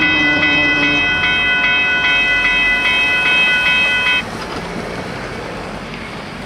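Railway level-crossing warning bell ringing in even strikes about two and a half times a second, stopping abruptly about four seconds in. Train rumble runs underneath and continues more quietly after the bell stops.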